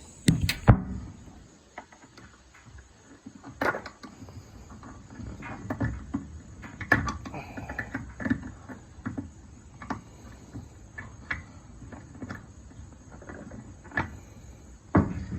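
A camera set down with two knocks, then irregular clicks, taps and scrapes of a screwdriver and plastic parts as a robot vacuum's drive wheel is worked back onto its housing by hand.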